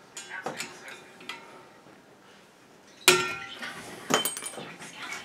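Metal clinks and knocks from handling the valve head and handle of a CO2 fire extinguisher: a few light clicks at first, then a loud, ringing metallic clank about three seconds in and another about a second later.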